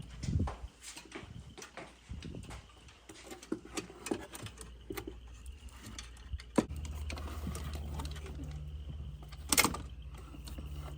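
Scattered light clicks and knocks of tools being worked on the car, with a louder cluster of knocks near the end. A steady low hum starts about two-thirds of the way in.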